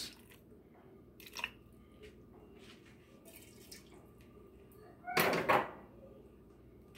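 Water trickling from a measuring cup into a slow-cooker crock at the very start, then mostly quiet, with a light tap about a second and a half in and a short, louder clattering noise around five seconds in.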